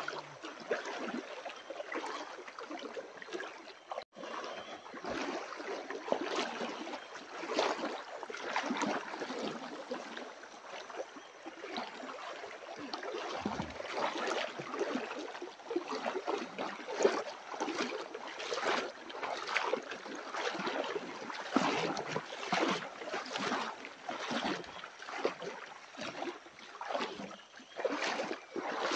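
River water rushing and splashing, uneven and continuous.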